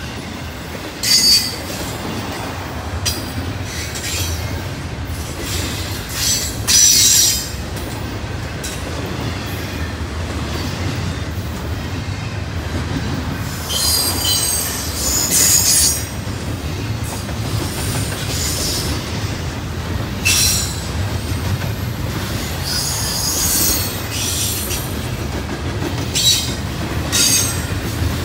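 A train rolling past with a steady low rumble, its wheels squealing in short, sharp high-pitched bursts every few seconds.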